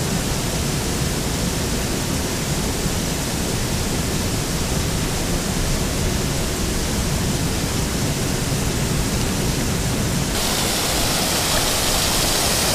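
Steady rushing of water, surf and falling water together, with a deep low rumble; about ten seconds in it turns suddenly brighter and hissier.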